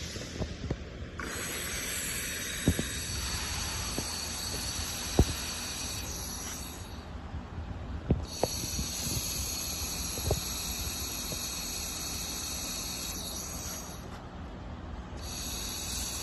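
Laser welding machine at work: a steady hiss with a high whine that runs for stretches of about six seconds and cuts out twice for about a second, and scattered sharp clicks.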